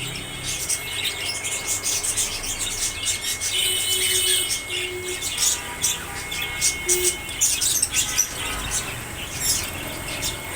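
Cockatiels chirping, with many short, overlapping high chirps and a few brief whistled calls.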